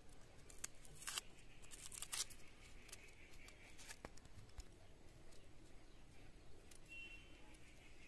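Dry, papery onion skin crackling and tearing as it is peeled off by hand: a few sharp crackles in the first couple of seconds, then only faint rustling.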